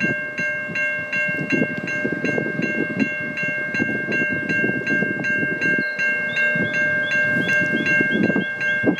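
Railway level crossing warning bell ringing steadily, a chord of tones struck about two to three times a second, signalling that the crossing is active for an approaching train. A second, higher chime joins in about six seconds in.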